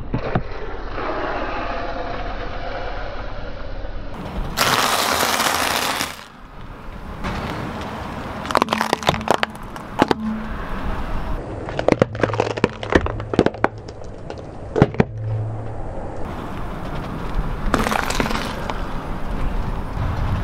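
A car tyre rolling over raw carrots, which crack and snap in two quick runs of sharp breaks. Before that, with a cola bottle under the tyre, a steady hiss gives way to a loud rush of noise about four to six seconds in.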